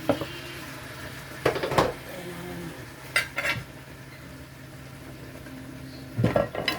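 A metal utensil clanking against a cooking pot of chicken in four short bursts of clatter.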